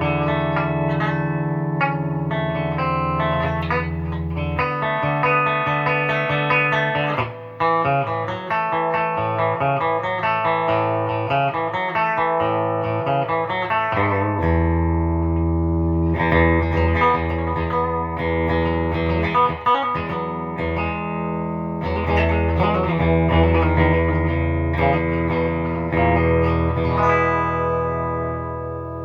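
Gibson Les Paul 50s Standard electric guitar played amplified on its P-90 bridge pickup with the volume at full. Held low notes open the passage, then a choppier picked stretch, and ringing chords and notes again from about halfway.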